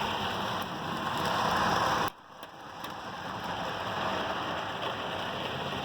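HO scale model train running on the layout track, a steady whirring rumble of motor and wheels. It cuts off suddenly about two seconds in, then builds back up gradually.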